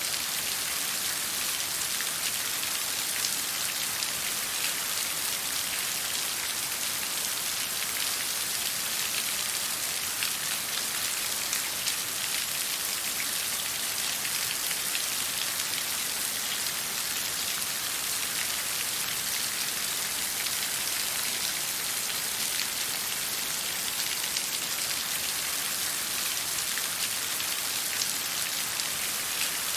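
Steady rain falling on a surface: an even, dense hiss of drops with fine patters.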